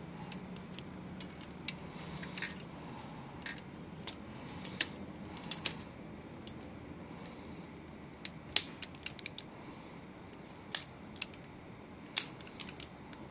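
Irregular sharp clicks and taps of small hard parts being handled, about a dozen strong ones and many faint ones, over a steady low hum.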